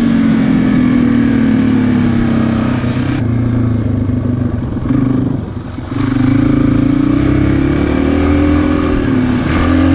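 Dirt bike engine running under throttle while riding, its pitch rising and falling with the throttle. A little past halfway the throttle is briefly closed and the engine drops, then picks up again.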